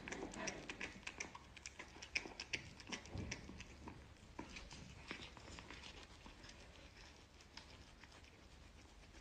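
Faint crunchy clicks of a cat chewing kernels off a cooked corn cob, coming irregularly and dying away about halfway through.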